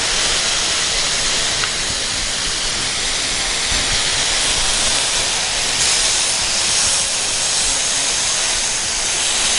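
Marinated chicken satay skewers sizzling steadily in oil on a hot grill pan over a medium flame.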